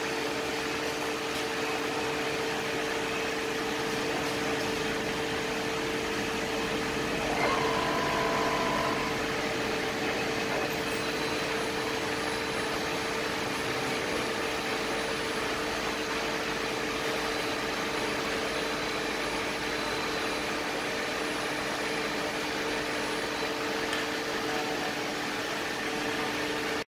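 Fellows Hydrostroke FS 400-125 CNC gear shaper under power, giving a steady mechanical hum with two steady low tones and no stroking rhythm. A brief higher tone rises over it about seven and a half seconds in.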